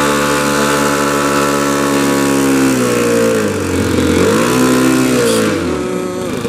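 Engine of a large radio-controlled P-51 Mustang model running on the ground. Its note holds steady, sags about three seconds in and climbs back as the throttle is worked, then drops lower near the end.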